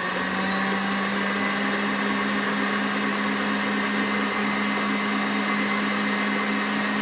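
Electric mixer motor running at a steady speed with a constant hum, creaming butter, sugar and peanut butter into cookie dough.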